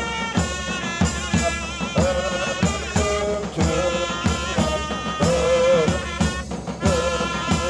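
Turkish mehter band playing: big davul drums beat about twice a second with clashing zil cymbals, under a wavering melody from the band's wind instruments.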